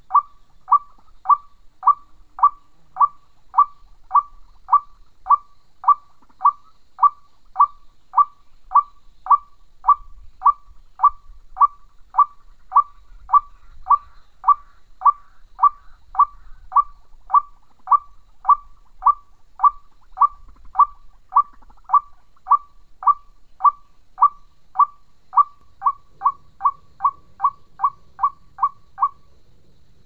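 White-breasted waterhen call: a short note repeated at a very even pace, nearly two a second, quickening slightly near the end and then stopping.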